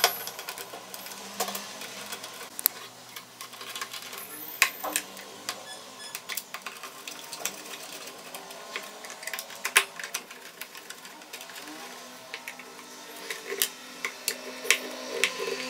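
Screwdriver working screws into a Preethi mixer-grinder's plastic housing during reassembly: irregular sharp clicks and scrapes of the metal tip and screws on plastic.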